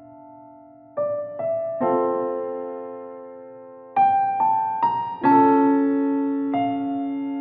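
Background piano music: slow, gentle notes and chords, each struck and left to ring and fade, with a cluster of new chords about a second in and again around four to five seconds in.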